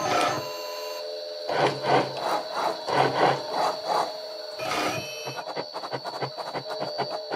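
Homemade CNC router pen-plotting: the motors driving its ball-screw axes whine steadily while the pen scratches across paper in a series of short strokes, then gives quick small ticks near the end.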